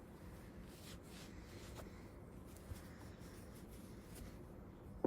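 Faint rubbing and handling of small, freshly cleaned metal motorcycle parts being wiped off, with a few light clicks and a sharper tap near the end.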